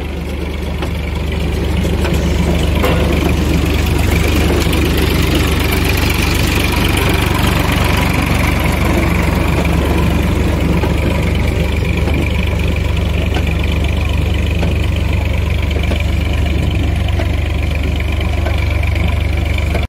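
Tractor diesel engine running steadily while it pulls a conveyor-type potato planter, with machine noise over it. It grows a little louder about two seconds in.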